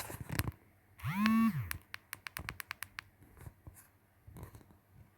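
Sharp clicks from a computer mouse and keyboard, with a quick run of about eight clicks in the middle. About a second in comes a short hum that rises and then falls in pitch, the loudest sound.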